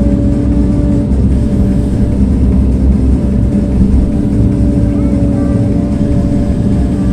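A machine running steadily: a loud, constant low rumble with a steady hum tone on top.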